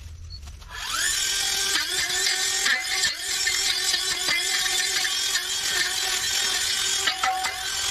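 A handheld power tool starts about a second in and runs steadily, its pitch dipping briefly several times as it bites into the work.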